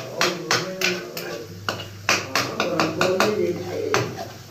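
Metal serving spoon repeatedly knocking and scraping against a stone-coated frying pan as a brain and egg fry is stirred and broken up. The knocks come irregularly, a few each second.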